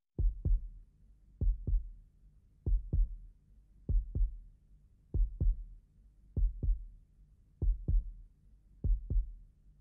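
Slow heartbeat: a low double thump, lub-dub, repeating evenly about every 1.2 seconds, eight beats in all.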